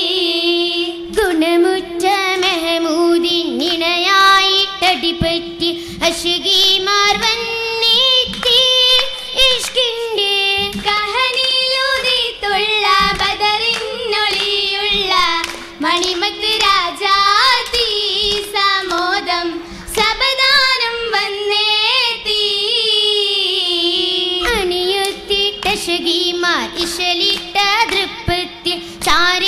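Girls' voices singing an Oppana song, a Mappila song, to a steady rhythm of group hand-clapping.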